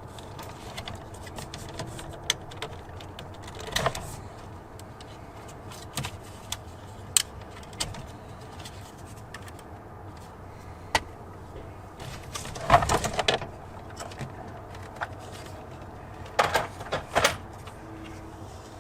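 Scattered light clicks and rattles of hands working on a pickup's door panel and its wiring plugs, with two short bursts of clicking, about two-thirds of the way in and again near the end.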